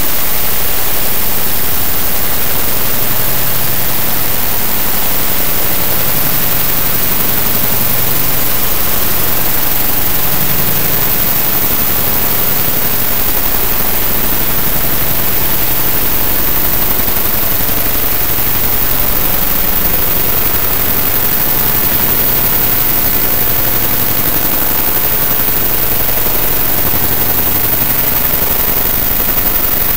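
Harsh noise music synthesized from image data, a picture file databent and played as audio: a loud, unbroken wall of hiss with a grainy, choppy rumble underneath.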